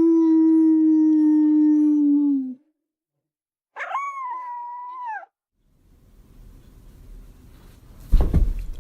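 Dog howling: one long, steady howl that ends with a slight drop in pitch about two and a half seconds in, then a shorter, higher-pitched cry that rises and dips again. Low rumbling noise follows, with a loud thump near the end.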